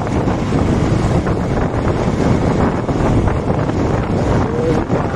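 Steady wind noise buffeting the microphone of a motorcycle moving at road speed, with a rushing road and engine rumble beneath.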